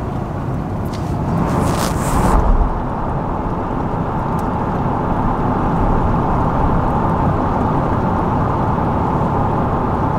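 6.7 Cummins turbo-diesel inline-six in a Ram 2500 running under way, heard from inside the cab as a steady rush of engine, turbo and intake noise with a faint whistle. About two seconds in there is a brief, louder hissing rush.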